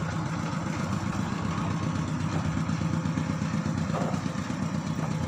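Diesel engine of a mobile rice huller running steadily, likely at idle.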